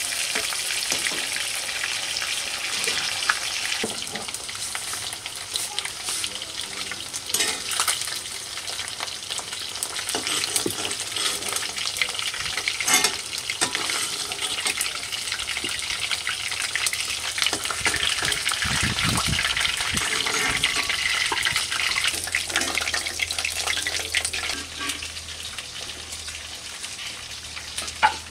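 Food frying in hot oil in a pan, sizzling steadily, with scattered clicks and scrapes of a utensil stirring it.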